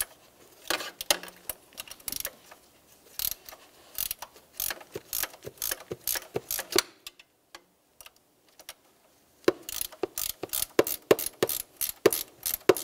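A 19 mm ratcheting wrench clicking in short runs as it is worked back and forth, loosening an engine coolant temperature sensor. The clicking stops for about two seconds midway, then comes back louder near the end.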